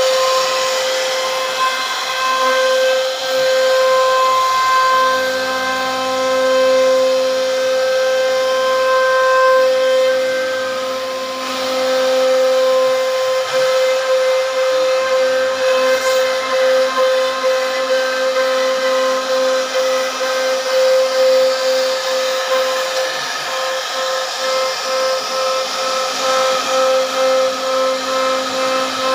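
CNC router spindle running at high speed with a steady whine while its profile bit mills a moulding along a wooden frame rail. In the later part the cutting sound pulses regularly, a little more than once a second.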